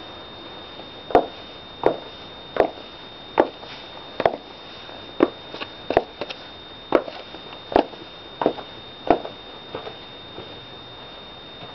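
Footsteps of high-heeled shoes walking up to and past a camera on the ground: about a dozen steps, roughly one every 0.7 seconds, the last few fainter as they move away.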